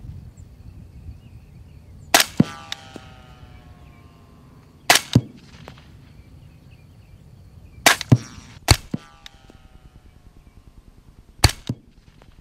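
Suppressed AAC MPW rifle with a SureFire SOCOM300-SPS suppressor, firing subsonic ammunition: five sharp shots a few seconds apart, most heard as a quick double crack about a quarter second apart.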